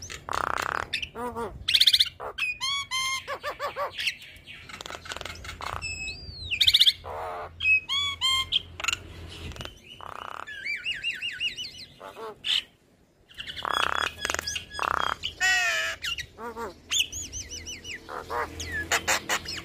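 Javan myna (jalak kebo) singing a varied, chattering song of rapid repeated chirps, whistles and harsh squawks, with a short break about two-thirds through.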